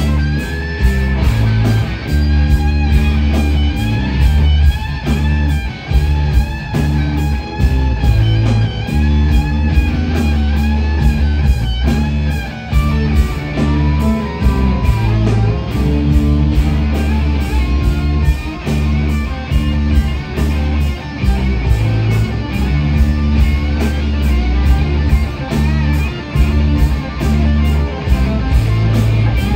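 Loud rock music led by electric guitar, with a heavy low end and a steady beat.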